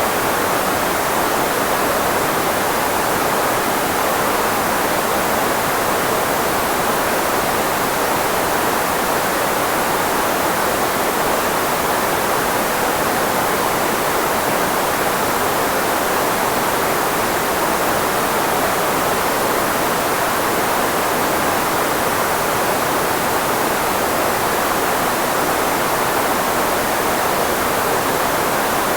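Steady filtered white noise, a speech-masking hiss with most of its energy in the middle range where voices sit, unchanging throughout.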